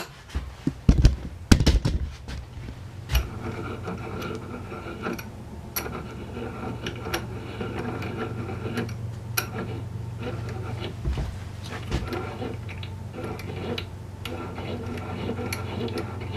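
A small cast-iron bench vise being handled: several sharp knocks and clicks in the first few seconds, then scattered light metal clicks over a steady low hum.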